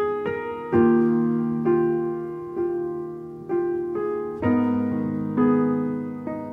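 Solo piano playing a slow ballad melody. A new note or chord is struck about once a second and left to ring and fade.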